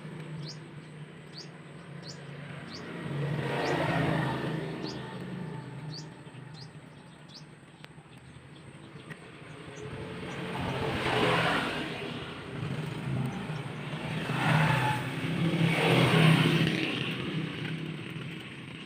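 Vehicles passing one after another, each swelling and fading over a couple of seconds, over a steady low hum, with a bird's short chirps repeating through the first half.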